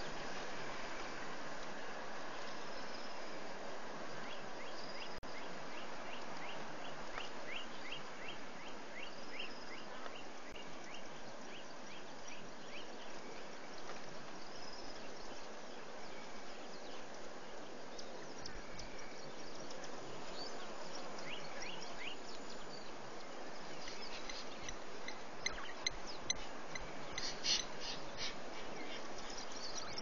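Outdoor bush ambience: a steady hiss with small birds calling in quick runs of short, high chirps several times, most densely near the end.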